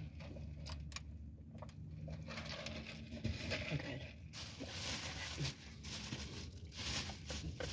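Handling sounds at a meal: a few small clicks and knocks, then a crinkling rustle of food packaging from about four seconds in.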